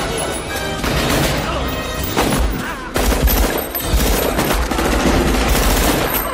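Film-soundtrack shootout: many gunshots in quick succession, mixed with score music.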